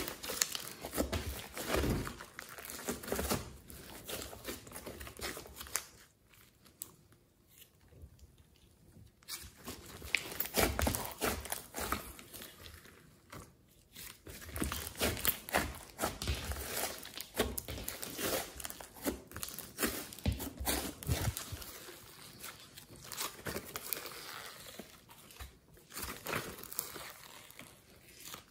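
Glossy slime mixed with clay being squeezed, stretched and folded by hand: dense, irregular sticky crackles and clicks, easing off to a quieter stretch about six seconds in before picking up again.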